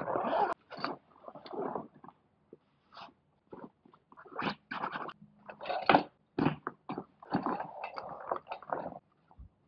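Handling noise from a ripstop sailcloth sling bag: irregular rustles and crinkles of the stiff nylon fabric as it is rolled, squeezed and lifted, with short pauses and a sharp click about half a second in.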